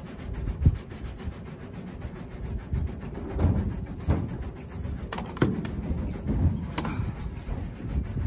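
Scuffing and rubbing of hands, knees and tools against a metal roof, over a low rumble, with a few sharp clicks a little past the middle.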